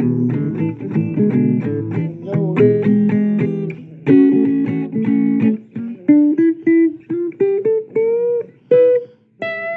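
Blues guitar playing: strummed chords for about five seconds, then single-note lines with string bends.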